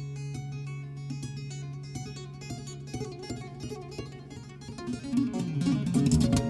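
Instrumental music on plucked acoustic guitar, a run of quick picked notes that grows denser and louder near the end and then breaks off abruptly.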